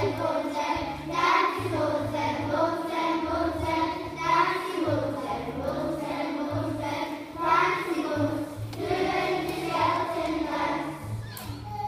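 A group of young children singing a song together over a backing track with a stepping bass line.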